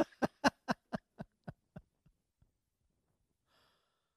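A man laughing: a run of about ten short "ha" pulses, about four a second, fading away over two and a half seconds.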